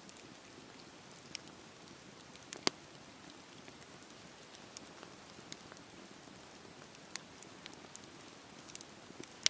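Campfire crackling: a soft, steady hiss with scattered sharp pops, the loudest about two and a half seconds in.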